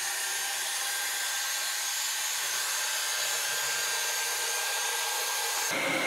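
Wolkinz Cosmo robot vacuum cleaner running as it cleans along the edges of the room: a steady whoosh from its inverter suction motor and fan, with a faint high whine.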